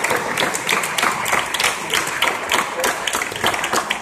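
Audience applause, many hands clapping, slowly thinning out.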